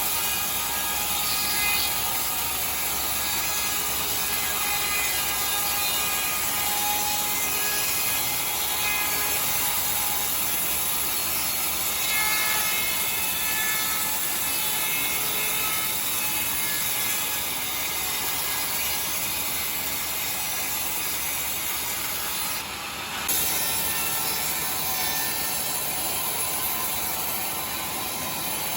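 Sawmill saw running and cutting through timber: a steady high-pitched saw noise that dips briefly about 23 seconds in and picks up again.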